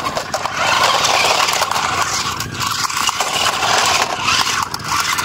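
Toy remote-control cars driving: the small electric motors and plastic gearboxes whir harshly, rising and falling as they speed up and turn, with the plastic tyres scraping over rough concrete.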